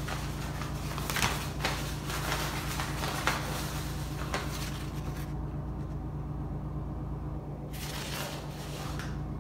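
Georgia-Pacific enMotion touchless paper towel dispenser running to feed out a towel, with a rushing sound and several sharp clicks from the mechanism. It stops about five seconds in. Near the end comes a short rustle as the paper towel is pulled off.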